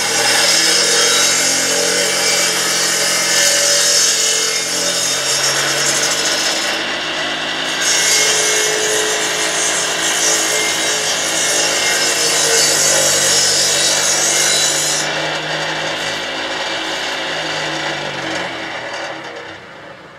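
Homemade sawmill cutting lengthwise through a white mangrove log as the saw head is pushed along: a steady cutting noise over a motor hum. It dies away near the end.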